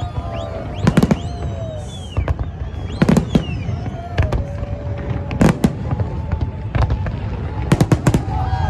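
Fireworks bursting in a New Year display: sharp bangs every second or two, with a quick cluster of bangs near the end, over a constant low rumble.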